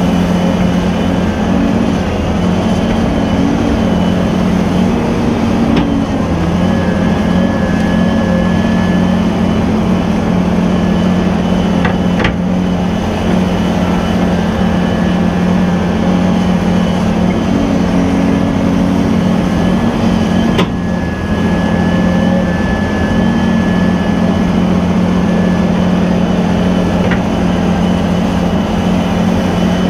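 Cat 323 hydraulic excavator's diesel engine and hydraulics running steadily under load while it swings and dumps buckets of dirt into an articulated dump truck. The hum's note shifts a few times, a faint high whine comes and goes, and there are four sharp clicks.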